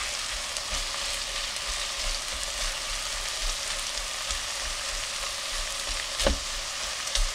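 Diced chouriço sautéing in its own released fat in a stone-coated pot, a steady frying sizzle, while it is stirred with a spatula. A single sharp tap about six seconds in.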